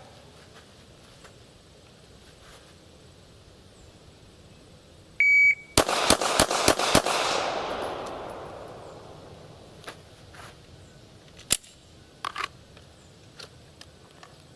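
Electronic shot timer beeps once, then a handgun fires five rapid shots about a third of a second apart, followed by a long fading echo. A single sharp click comes a few seconds later.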